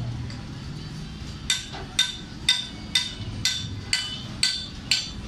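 Hammer blows on metal: after a pause of about a second and a half, eight even strikes about two a second, each with a bright metallic ring.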